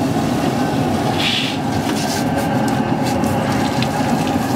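Garden hose spray nozzle jetting water onto a filleted salmon on a cutting board: a steady spray of water spattering on the fish and board, with a brief brighter hiss about a second in.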